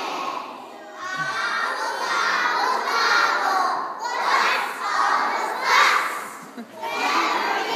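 A large group of young children singing together at full voice, many voices overlapping, with louder swells partway through.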